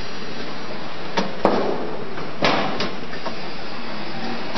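Fruit peeling machine running with a steady mechanical noise, broken by several sharp knocks between about one and three seconds in.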